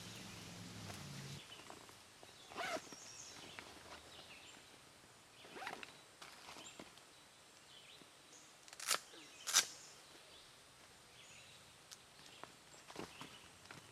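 Camping gear being handled in a backpack: scattered rustles and scrapes, with two short, sharp zipper-like rasps about half a second apart a bit past the middle, the loudest sounds.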